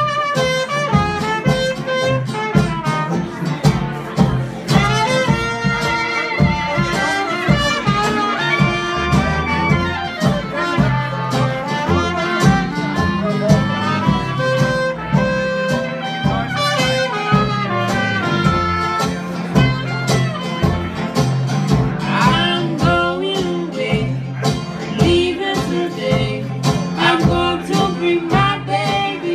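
Traditional New Orleans jazz band playing a blues live, a tuba bass line under brass and fiddle melody lines and a steady beat.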